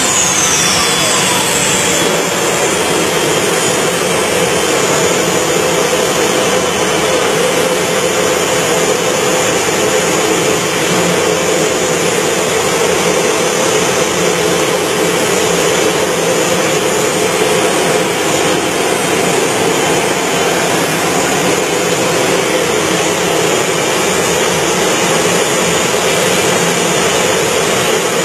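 The helicopter turboshaft engine (Rolls-Royce Allison 250 gas turbine) of an MTT 420RR motorcycle running steadily. It makes a loud, even jet-like roar with a high whine on top, and a whine falls in pitch about a second in.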